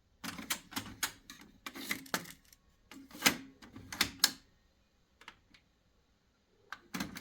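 Irregular sharp clicks and light knocks from hands working on a Sony MHC-RV7 cassette deck mechanism. The clicks come thick for about four seconds, then only a few scattered ones follow.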